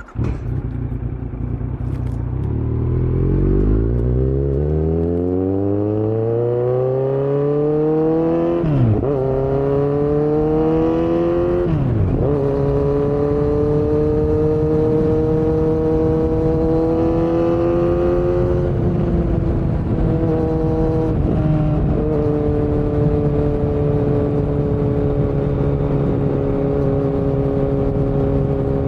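Kawasaki Z900 inline-four with a Yoshimura muffler and Delkevic headers, no dB killer, pulling away and accelerating: the revs climb for about eight seconds, drop sharply at two upshifts about nine and twelve seconds in, then settle into a steady cruise with a few small throttle changes.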